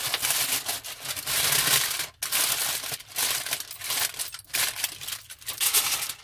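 Aluminium foil crinkling and crumpling in irregular bursts as hands press and fold it around a cooked beef joint.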